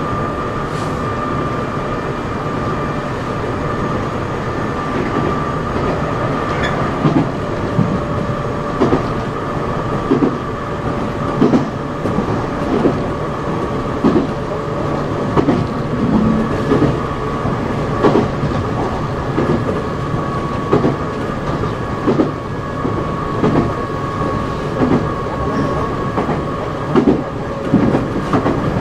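Nankai 6000 series electric train, heard aboard its motor car, running at a steady speed: a constant whine from the Mitsubishi traction motors and gears over the rumble of the wheels. From about seven seconds in, the wheels click over rail joints at a steady rhythm, roughly every second and a half.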